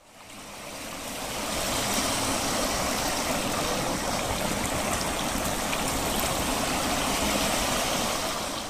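Fountain jets spraying in a ring and splashing into a pool: a steady rush of falling water that fades in over the first couple of seconds and fades out near the end.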